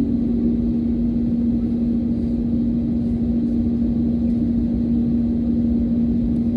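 Cabin noise of an Airbus A320neo with Pratt & Whitney PW1100G geared turbofans at idle while taxiing. The engines give a steady hum with one strong held tone over a low rumble.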